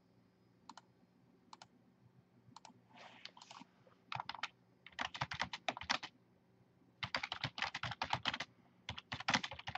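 Typing on a computer keyboard: two single key taps, then bursts of rapid keystrokes from about three seconds in.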